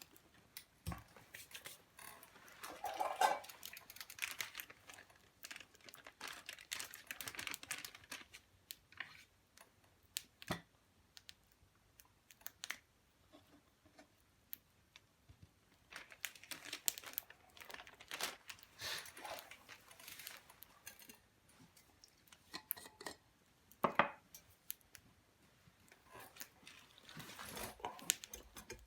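Hands handling small cooking gear and food: scattered clicks and taps, stretches of crinkly rustling, and one sharper knock about three-quarters of the way through.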